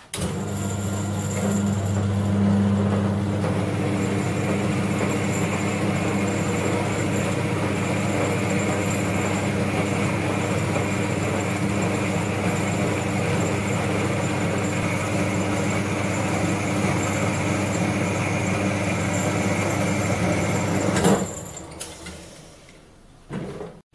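Small horizontal metal-cutting bandsaw running as its blade cuts through the steel bar of an old speed brace: a steady motor hum under the rasp of the blade. It starts abruptly, then is switched off about 21 seconds in and winds down.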